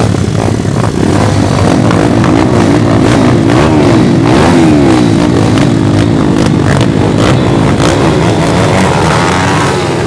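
JMC pit bike single-cylinder four-stroke engines revving, the pitch rising and falling again and again as the throttle is worked.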